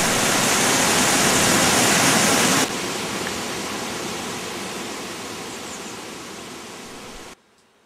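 Mountain stream rushing over rocks in a gorge: a loud, steady wash of white water that drops abruptly to a softer rush about two and a half seconds in, then fades and cuts off shortly before the end.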